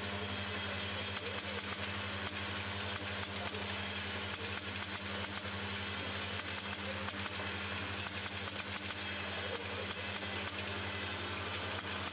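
A steady low machine hum with a hiss over it, and light clicks coming at irregular intervals.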